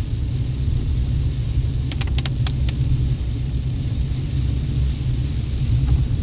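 Chevy Colorado Z71 pickup truck driving, a steady low rumble of engine and road noise. A quick run of clicks comes about two seconds in.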